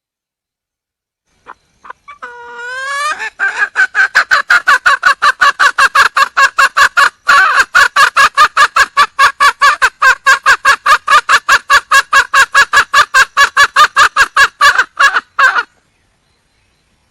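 Wild junglefowl hen calling: a few rising notes, then a long, fast, even run of loud clucks, about five a second, which stops abruptly. It is the hen's call for a male.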